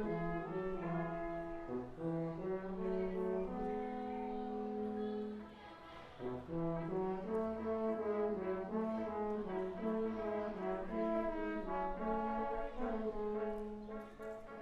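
Brass quintet of two trumpets, French horn, trombone and tuba playing an arrangement of pop songs, with held chords over a moving bass line. The ensemble drops out briefly about six seconds in, then comes back in.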